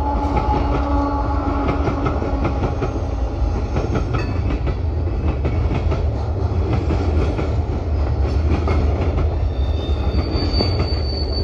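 Freight train cars rolling past with a steady low rumble and wheels clicking over rail joints. A thin high squeal comes in near the end.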